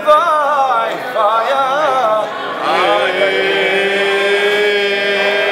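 Men singing an Albanian polyphonic song. A wavering, ornamented melody runs for about two seconds, then one long note is held steady from about three seconds in.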